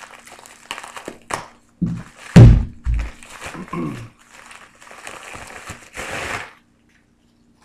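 Plastic USPS Priority Mail mailer crinkling and rustling as it is slit with a pocket knife and pulled open, with two heavy thumps about two and a half and three seconds in, the loudest sounds. The rustling stops about six and a half seconds in.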